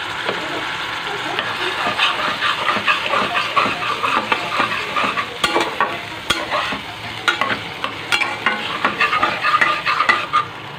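Onion-ginger masala sizzling as it fries in oil, stirred with a spatula in a pot. From about two seconds in, the stirring adds irregular scraping clicks against the pan.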